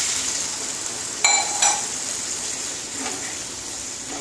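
Snake gourd curry sizzling steadily in a non-stick pan just after water is added, with two sharp ringing clinks against the pan a little after a second in, then a wooden spatula stirring the vegetables.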